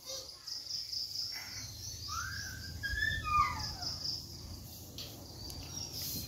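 Insects chirring steadily in the background while a bird calls a few quick whistled notes, rising and then falling, about two to three and a half seconds in.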